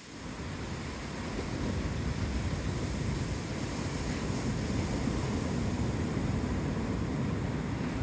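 Ocean surf breaking and washing onto a sandy beach, with a low rumble of wind on the microphone. It swells over the first second or so, then holds steady.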